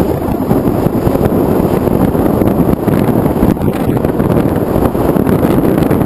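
Airflow buffeting the microphone of the onboard camera on an FPV model airplane in flight: loud, steady wind noise, heaviest in the low end.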